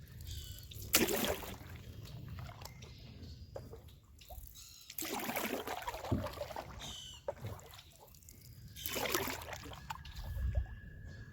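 Canoe paddle dipping and splashing in the river water, three separate strokes a few seconds apart with trickling drips between them. A bird calls briefly in between.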